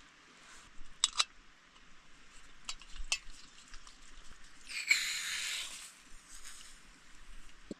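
Camp cooking: a few sharp clicks of a utensil against cookware, then a short burst of sizzling hiss about five seconds in.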